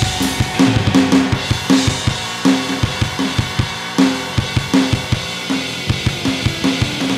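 Carlsbro CSD310 electronic drum kit played in a fast, driving rock beat of kick, snare and cymbals, over a recorded rock song played along to.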